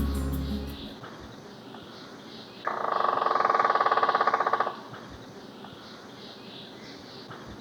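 A woodpecker drumming on a tree: one rapid roll of strikes lasting about two seconds, starting a little over two seconds in. Background music fades out at the start.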